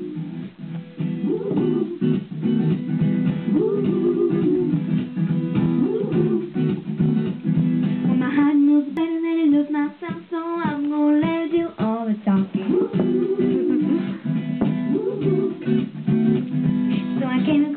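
Backing music led by a strummed acoustic guitar, the instrumental intro before the singing comes in; a higher melody line stands out from about eight seconds in.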